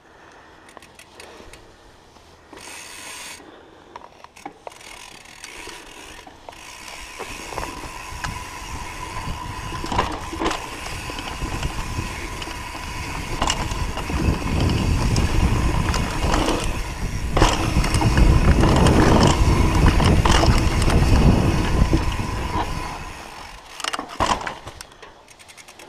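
Mountain bike riding down a dirt trail: the rear hub's freewheel ratchets and buzzes while coasting, with knocks and rattles over bumps. A rushing rumble of wind and tyres builds through the middle and eases off near the end.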